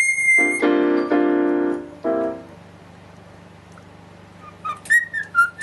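A cockatiel whistles one held note, then a few piano notes ring out over about two seconds. After a short quiet stretch, the cockatiel starts whistling again near the end with short notes that step up and down.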